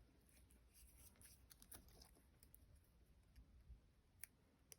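Near silence: faint room tone with a few soft clicks of paper and craft tools being handled.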